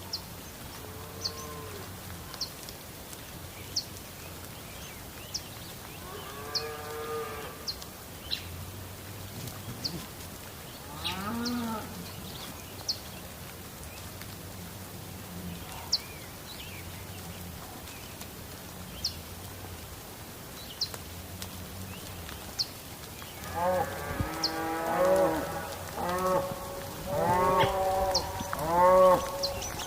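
Cattle mooing: single drawn-out calls now and then, then several loud calls overlapping near the end. Short high chirps sound every second or so throughout.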